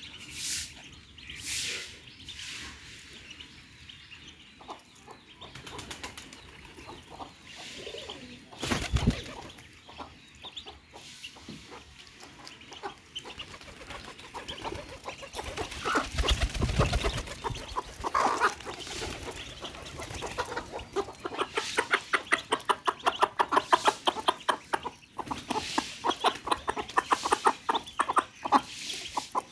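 A brood of ducklings pecking and dabbling at crumbled feed on a paper sheet: quick, dense tapping and rustling that becomes a rapid, even clatter in the second half. A hen clucks among them, and there are two brief low bumps.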